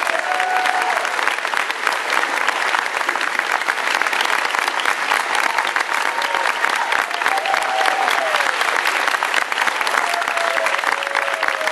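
Audience applauding steadily in a large hall, dense clapping with a few voices calling out over it.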